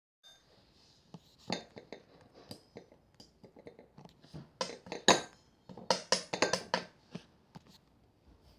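Slime being handled and pressed, giving irregular sharp clicks and crackles that come thickest about halfway through.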